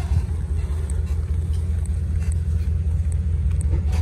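Chateau Class C motorhome's engine running with a steady low rumble as the motorhome slowly maneuvers into a campsite, with a few faint light ticks.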